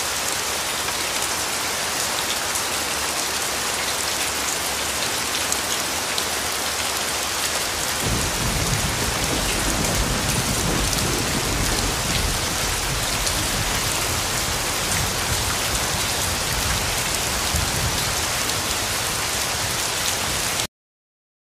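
Steady, heavy rain hiss. About eight seconds in, a low rumble joins underneath it and continues. The sound cuts off abruptly near the end.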